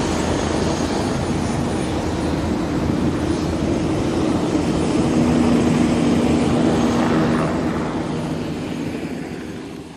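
Helicopter running nearby: a steady drone of engine and rotor with a low hum, swelling a little in the middle and fading out near the end.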